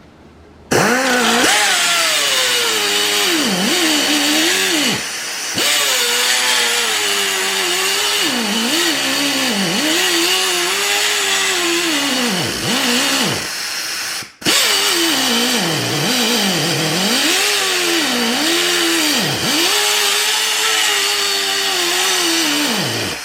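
SP Air SP-7231 flex-head air cut-off tool running at full speed with a high whine that repeatedly drops in pitch and recovers as the cut-off wheel is pressed into the work and eased off. It starts under a second in, stops for a moment about two-thirds of the way through, then runs again.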